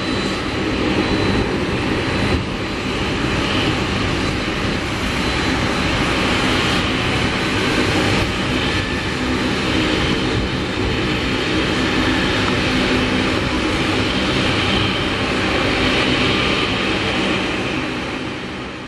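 Boeing 747-400's four jet engines at takeoff power, a loud steady jet noise as the airliner climbs out, fading near the end.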